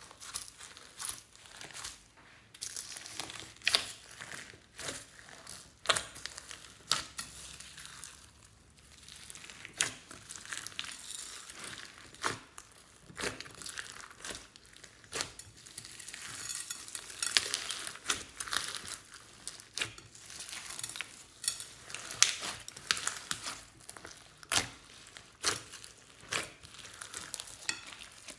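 Hands squishing and kneading glossy slime mixed with foam beads and styrofoam balls, giving a continuous run of irregular clicks, crackles and pops.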